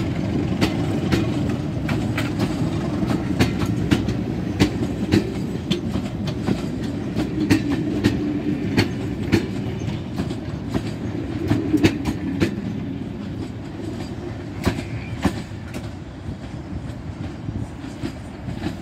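Railway passenger coaches rolling past on jointed track, their wheels clicking over the rail joints about twice a second over a low rumble. The rumble fades in the last few seconds as the train draws away.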